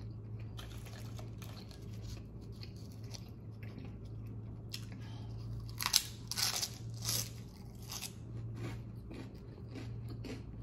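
Close-miked mouth sounds of a person eating: steady chewing with soft smacks and crunches, then a quick run of louder smacks about six seconds in as fingers are licked.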